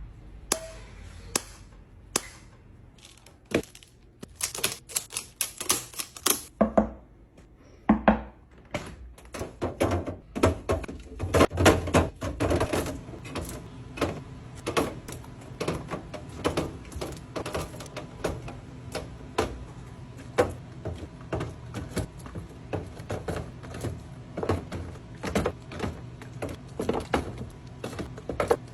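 Many quick, irregular clicks and taps of hard objects being handled. They are sparse at first and come thick and fast from about ten seconds in.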